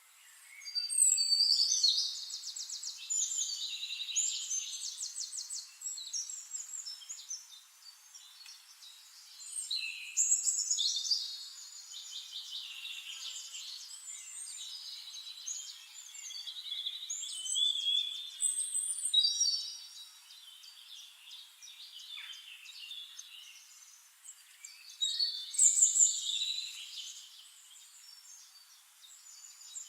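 A songbird singing in several long bouts of rapid, varied, high-pitched trills and warbles, with quieter gaps between the bouts.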